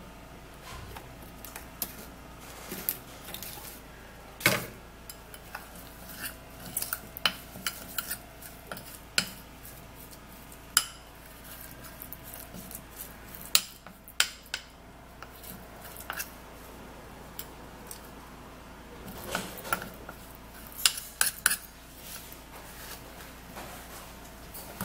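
A spoon clinking and scraping against a bowl in irregular taps while scooping in coconut oil and stirring a thick oily mixture.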